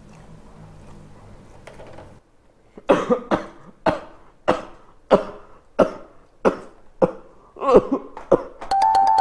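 A man coughing hard, about ten sharp coughs in quick succession, choking on the sting of wasabi eaten without soy sauce. A short musical jingle comes in near the end.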